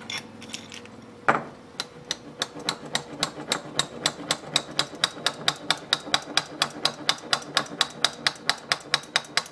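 One louder knock about a second in, then a long run of quick, evenly spaced light taps, about four or five a second.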